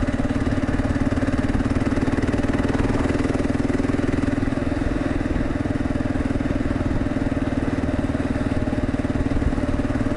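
Kawasaki KLR650's single-cylinder engine running at a steady cruise through a Lexx aftermarket exhaust, with wind and road noise over it.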